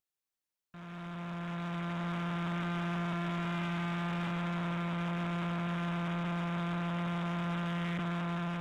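Radio pulses of the millisecond pulsar PSR J0437-4715 turned into sound: a steady low buzzing drone with many overtones, its pitch set by the star spinning about 174 times a second. It starts less than a second in, after a brief silence.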